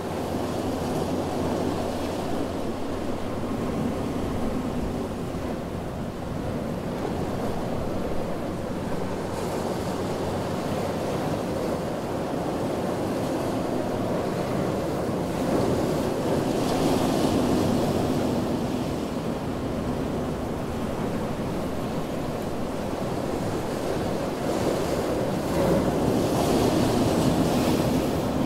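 Ocean surf: a continuous rush of waves washing ashore, swelling louder twice, about halfway through and again near the end, as waves break.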